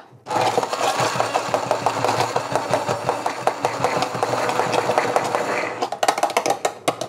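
Hand-held stick blender running steadily, puréeing tomato sauce with soft-cooked carrots and onion in a pan to make it creamy. It starts just after the beginning and stops near the end, followed by a few clicks and knocks.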